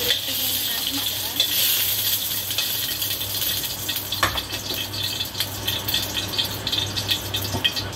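Hot oil sizzling and crackling in a wok as fried potato chunks are scooped out, over a steady low hum. A single sharp knock comes about four seconds in.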